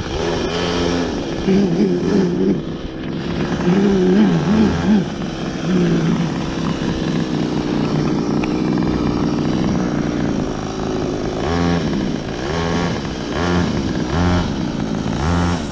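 Small gasoline engine of a go-kart running and revving up and down, its pitch wavering; near the end it rises and falls about once a second as the throttle is blipped.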